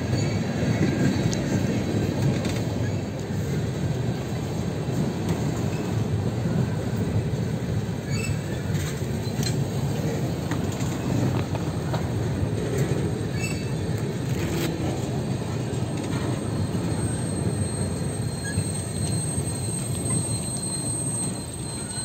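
Freight train of tank cars rolling past close by: a steady rumble of steel wheels on rail with occasional sharp clicks, and a faint high steady tone coming in over the second half. The noise drops off near the end as the last car goes by.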